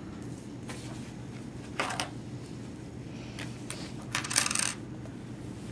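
Sheets of paper being handled and leafed through: a brief rustle about two seconds in, then a louder, longer rustle about four seconds in.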